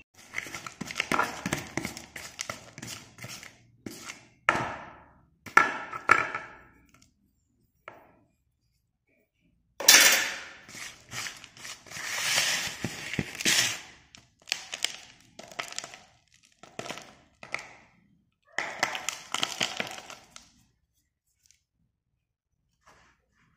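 Slate pencils being broken by hand, their pieces cracking and clattering in a plastic tub, in several bursts of sharp cracks and knocks.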